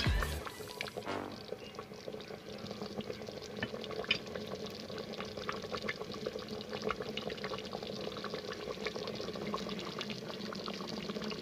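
Thick pot roast gravy boiling in a multi-cooker pot, a steady stream of small bubbling pops over a soft hiss, with a faint steady hum underneath.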